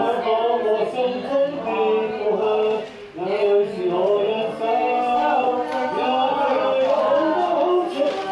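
Voices singing long held notes that slide between pitches, with a short break about three seconds in.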